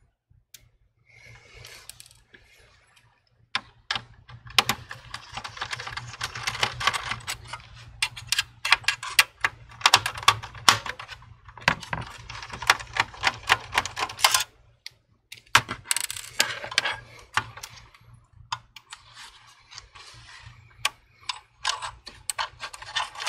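Fingers prying at and handling the small aluminium heatsink over an M.2 SSD inside an opened all-in-one PC: irregular clicks, taps and scraping of metal on plastic. The heatsink is stuck down by a thermal pad, which makes it tricky to lift.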